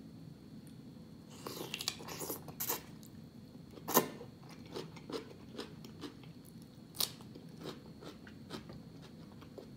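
Crunchy bite into a raw cucumber spear dipped in seafood boil sauce, a sharp crack about four seconds in, then a second crunch a few seconds later and close-up chewing with many small crunches.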